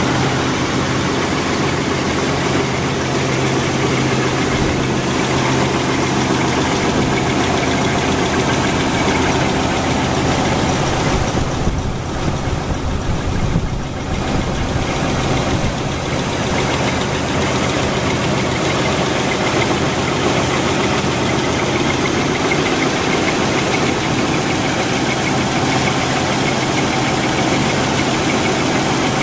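White 160AX 386 cubic-inch six-cylinder gasoline engine of an M2A1 halftrack running steadily, newly rebuilt and in its run-in.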